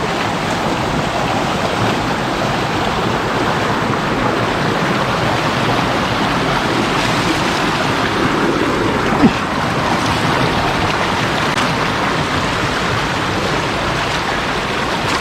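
Steady rush of river water flowing close by, with one brief knock about nine seconds in.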